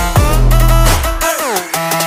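Electronic dance music with a heavy bass line and synth notes that swoop downward about once a second.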